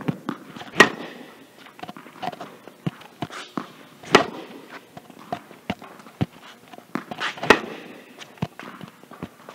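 Tennis racket striking the ball on slice backhands: three sharp hits about three and a half seconds apart, with lighter taps of footsteps and ball bounces between them.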